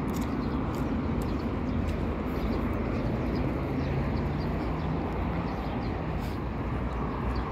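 Steady outdoor background noise of distant road traffic and wind on the microphone, with a few faint bird chirps.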